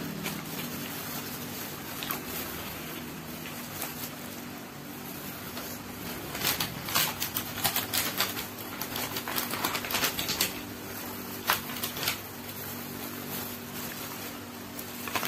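Close-up eating sounds: chewing, and a plastic-gloved hand handling food in a paper box. Short clicks and crinkles cluster in the middle, over a steady low hum.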